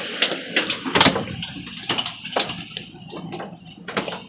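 Hail and heavy rain hitting an RV's roof, heard from inside: a steady hiss with many irregular sharp hits.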